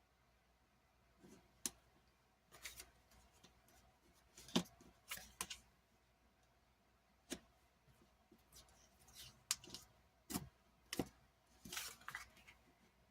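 Faint, scattered clicks and short rustles of washi tape rolls being handled and unrolled on a desk.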